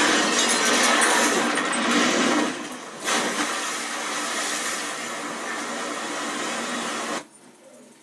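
Action-film soundtrack of an explosion and fire on a ship, heard through a TV's speaker as dense noise with no dialogue, dipping briefly near three seconds. The sound cuts off abruptly about seven seconds in as the TV switches channel.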